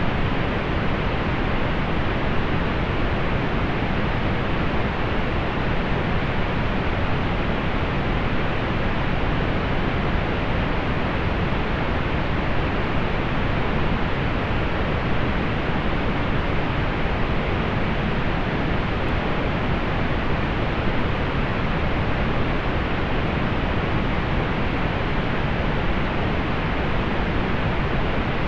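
Steady synthetic pink noise, an even hiss weighted toward the low end and dull at the top, unchanging throughout.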